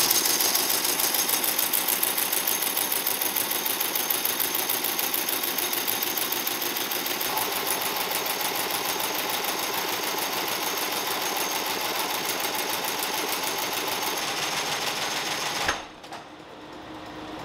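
Industrial sole-stitching machine sewing the edge of a leather shoe midsole: a loud, fast, even rhythm of stitches that stops abruptly near the end, leaving only a lower factory hum.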